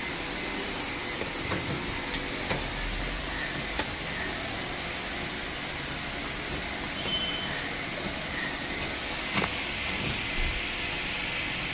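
Steady background hiss with a few light clicks and knocks as hands handle the plastic rooftop AC housing of a Maruti Suzuki Ertiga.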